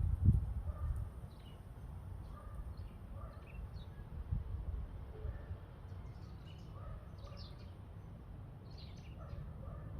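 Wind gusting across the microphone with a low rumble, strongest in the first second and then easing to a steady level. Small birds chirp throughout in short, repeated calls.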